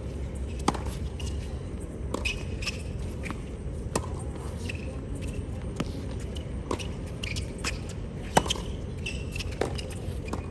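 Tennis ball struck by rackets in a doubles rally on a hard court: a string of sharp pops every one to two seconds, the loudest near the end.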